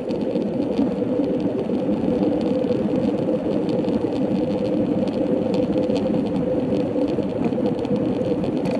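Steady muffled rumble and hum of a bicycle rolling along an asphalt path, picked up by a camera on the handlebars: tyre and road vibration mixed with wind, with faint ticks here and there.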